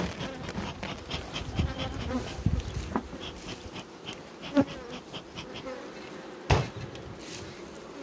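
Honeybees buzzing over an opened hive while the cover is handled, with rustling and two sharp knocks, the second about two seconds after the first.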